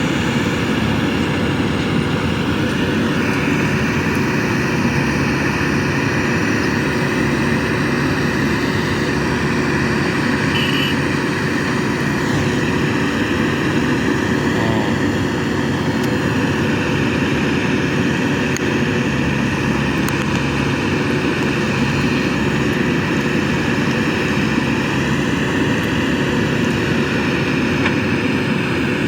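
Diesel engines of a JCB 3DX backhoe loader and a Mahindra 475 DI tractor running steadily while the backhoe loads mud, a low engine hum with a steady high whine over it.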